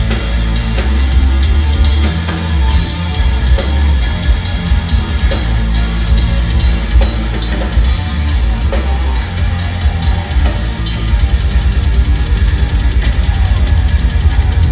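Heavy metal band playing live through a large concert PA: distorted electric guitars, bass guitar and a drum kit with heavy bass drum, loud, with the drumming growing denser about ten seconds in.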